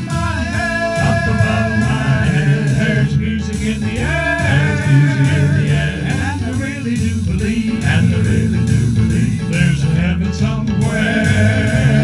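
Male vocal group singing an upbeat gospel song into microphones over instrumental accompaniment, with no clear lyrics in this stretch.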